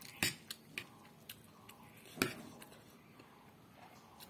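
Eating noodles with a fork: a series of sharp clicks and taps of the metal fork against the plate, the loudest about two seconds in, between quiet chewing.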